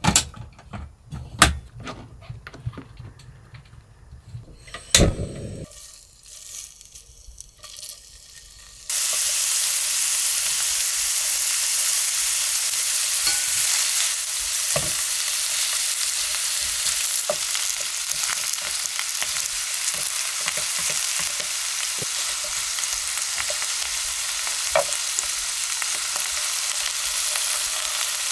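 A few knocks and clinks of cookware being handled, then about nine seconds in a sudden, steady sizzle of thin-sliced beef brisket frying in a hot pan. Light taps of metal tongs against the pan come through the frying as vegetables are laid in.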